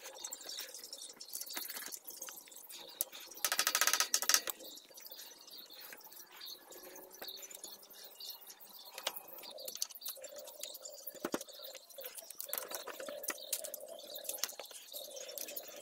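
Small clicks and knocks of hands and a hand tool working a motorcycle's rubber footpeg on its metal bracket, with a short burst of rapid, evenly spaced clicking about three and a half seconds in.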